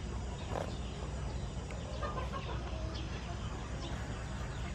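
Chickens clucking faintly in the background, a few short calls scattered over a steady low hum.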